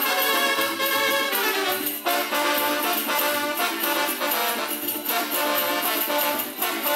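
Brass band playing dance music, with the rhythmic jingle of the dancers' leg bells.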